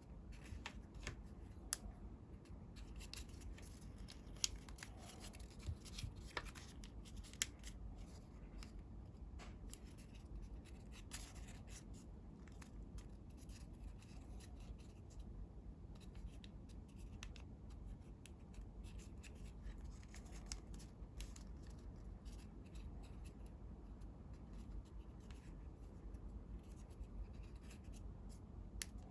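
Sheets of coloured origami paper being handled, folded and creased by hand: soft crinkling and rustling with many small crisp ticks, and a few sharper snaps in the first eight seconds.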